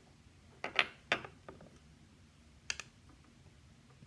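Small metal lock parts and tools clicking and tapping as they are handled on a tabletop: a quick cluster of sharp clicks about a second in, then a double click later on.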